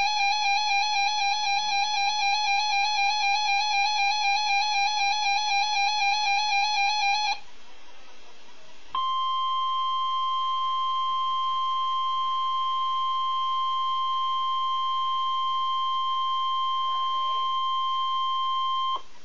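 An electronic warbling tone with a buzzy edge, pulsing about four times a second for about seven seconds. After a short pause, the NOAA Weather Radio 1050 Hz warning alarm tone sounds, one pure steady tone for about ten seconds, signalling the alert that receivers are activated by.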